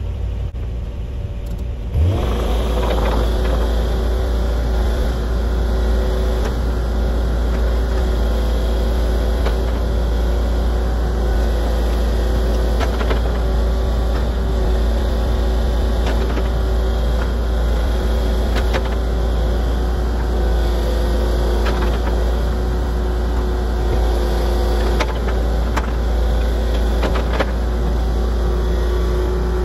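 A large engine running steadily under load, stepping up louder about two seconds in, with a few faint clanks.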